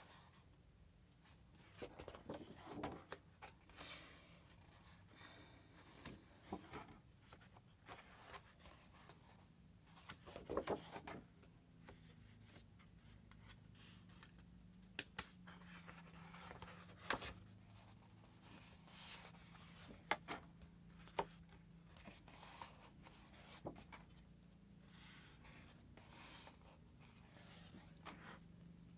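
Sheets of heavy scrapbooking paper being turned over and laid down one after another: faint rustles and scrapes of paper on paper, with occasional sharper flaps as a sheet drops.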